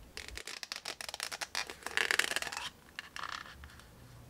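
Plastic takeout food packaging handled at close range: a quick run of crackles and scrapes for about two and a half seconds, then a shorter rustle as the lid comes off a paper soup cup.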